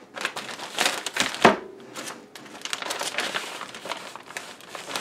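Clear plastic vacuum-sealer bag crinkling and rustling as hands work a large rib eye steak and thyme sprigs into it. There is one heavier thump about one and a half seconds in.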